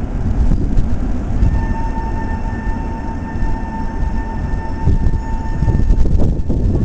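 Tatra T3 trams running past on street track, a heavy low rumble, with a steady high whine from about a second and a half in to about six seconds in.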